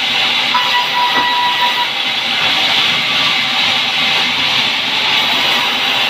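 Sawmill band saw cutting pine: a loud, steady hissing rasp of the blade through the wood, with a faint high whine in the first couple of seconds.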